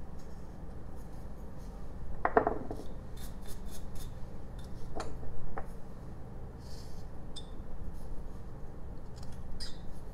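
A carving knife slicing small chips off a jelutong wood figure, a series of short, crisp cuts over a low steady hum. The loudest cut comes about two seconds in, and two smaller ones follow about five seconds in.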